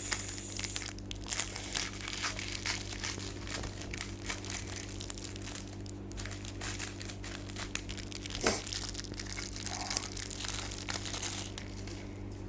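Plastic packaging crinkling and rustling in irregular crackles as a parcel is cut and unwrapped, over a steady low hum.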